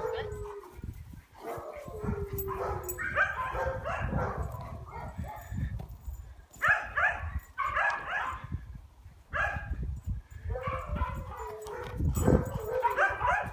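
Dogs whining, yipping and howling in repeated bouts of high, wavering calls that slide in pitch, over a low rumble.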